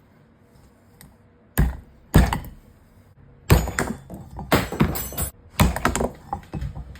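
Metallic knocks and clanks as Ramset nails stuck through a steel padlock are worked back out. There are two separate knocks, then a quick run of clanking with a high metallic ring.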